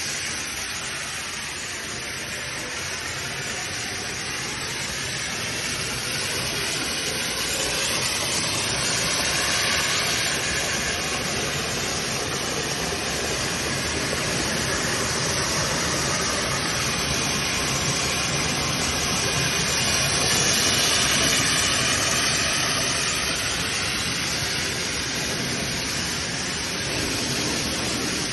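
Corrugated plastic hose extrusion line running: a steady mechanical hiss and hum that swells and eases slightly a couple of times.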